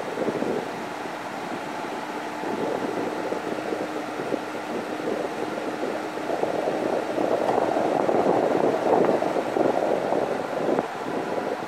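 Wind buffeting a microphone mounted on the outside of a moving car, over the steady noise of tyres on the road. The wind swells louder in gusts past the middle.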